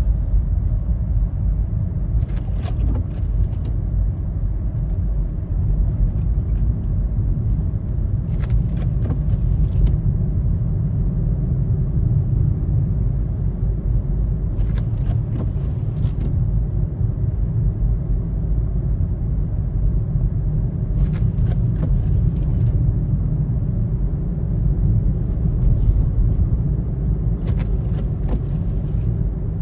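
Road noise inside a moving car: a steady low rumble of engine and tyres, with a faint swish every six seconds or so.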